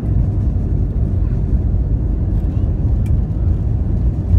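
Steady low rumble inside the cabin of an Airbus A320 rolling on the ground after landing, the noise of its engines and wheels heard through the fuselage.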